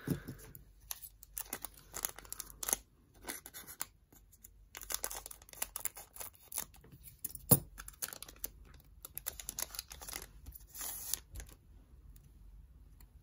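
Foil booster pack wrapper crinkling in the hands and being cut open with small scissors, with one sharp loud click about halfway through. The crackling stops about eleven seconds in.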